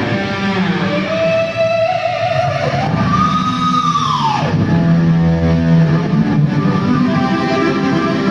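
Electric guitar played through an amplifier during a sound check: held notes bent upward, then a high note about three seconds in that slides down in pitch, followed by sustained lower chords.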